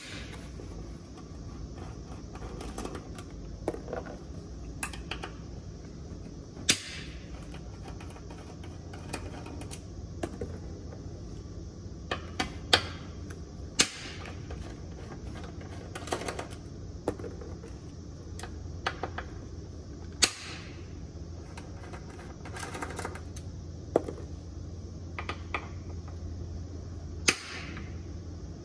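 Irregular sharp clicks and metallic taps, a second to several seconds apart, as the fuel pump and filter assembly is handled in the opening of a motorcycle fuel tank, over a steady low hum.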